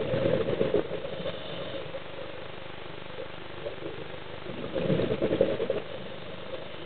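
Muffled underwater noise heard through a small camera's housing: a steady hiss with two bursts of crackling, rushing sound, one at the start and one about five seconds in, each lasting about a second.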